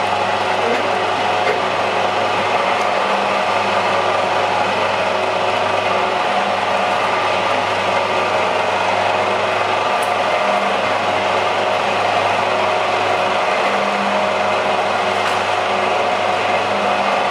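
Automatic dumpling-making machine running steadily: a continuous mechanical rattle of its forming mechanism over a low motor hum.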